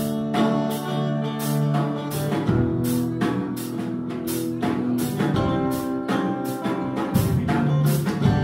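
Live band jamming: a drum kit keeps time with a cymbal stroke about twice a second under sustained electric guitar notes.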